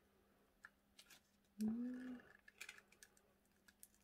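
Faint crinkles and clicks of foil ration packs and a paper sachet being handled as the glued sachet is worked loose from the foil. A short hum from a person's voice comes about halfway through.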